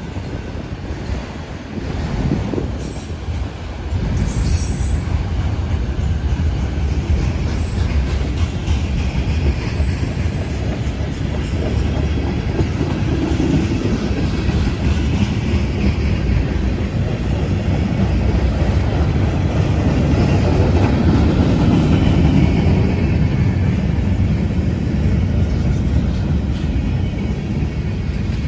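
BNSF manifest freight train's cars (autoracks, then tank cars) rolling past, a steady rumble of steel wheels on rail that grows louder about four seconds in.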